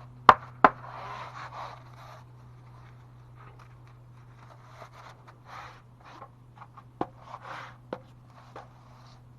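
Small installation corner pieces being handled and set down: sharp clicks and knocks, two near the start and two more near the end, with rustling and scraping in between. A steady low hum runs underneath.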